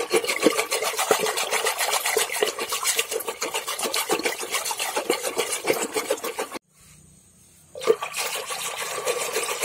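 Wooden hand churn twirled back and forth in a clay pot of curd, sloshing in a rapid, even rhythm as the curd is churned into buttermilk to bring up butter. The churning stops for about a second two-thirds of the way through.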